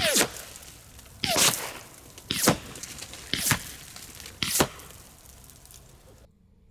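Five suppressed 10mm pistol shots, about one a second, heard from the target berm 100 yards downrange: each a sharp crack followed by a whiz that falls in pitch as the bullet passes.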